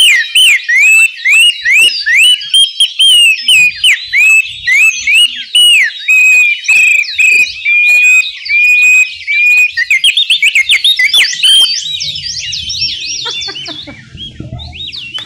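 A group of about ten people blowing handmade indigenous bird-call whistles ("Som de Pássaro") together, a dense chorus of overlapping warbling, chirping glides imitating birdsong. The whistling thins out and fades about twelve seconds in.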